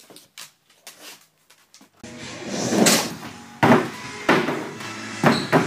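Music, with several loud wooden knocks and clatters of a skateboard hitting plywood ramps, starting about two seconds in after a nearly quiet start.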